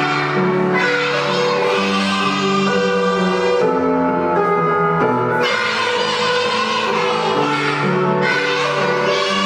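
Young children singing a song together over instrumental accompaniment.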